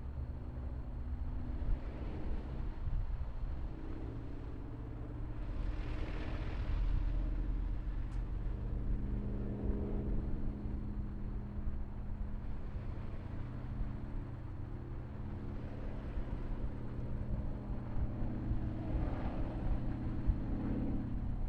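Piston engine of a vintage biplane flying overhead: a steady drone whose pitch drifts slowly, with swells of hiss about six seconds in and again near the end.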